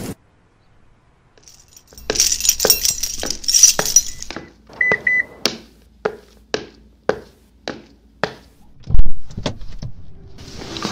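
Short silence, then a jangling, rattling clatter, three quick high beeps, and a run of sharp clicks about two a second. A heavy thump about nine seconds in is the loudest sound.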